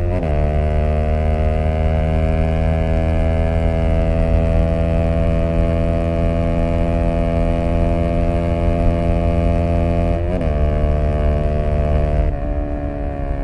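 Zontes U125 scooter's engine running through an aftermarket BlackWidow exhaust while riding. Its note drops sharply right at the start, then climbs slowly over several seconds, drops sharply again about ten seconds in, and eases off a little near the end.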